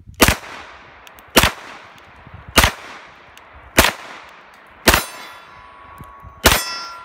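Six shots from a 9mm Glock 34 pistol, fired at a slow, even pace about a second or so apart, each echoing briefly. After the last two shots a steel plate target rings out with a sustained metallic tone.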